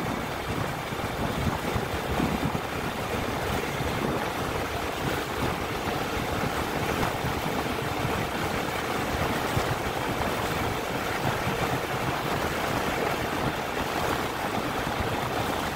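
Steady rushing ride noise, wind on the microphone mixed with tyres rumbling over hexagonal concrete paving blocks, even throughout with no breaks.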